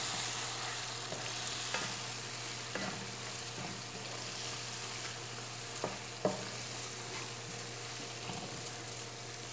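Spiced tomato masala sizzling in hot oil in a pot while a wooden spoon stirs it, with a few light knocks of the spoon against the pot.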